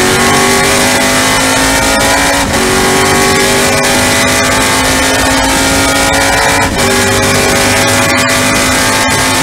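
TA2 Trans Am race car's V8 engine at full throttle, heard from inside the cockpit, its pitch climbing as the car accelerates, broken by two quick upshifts, about two and a half seconds in and again near seven seconds.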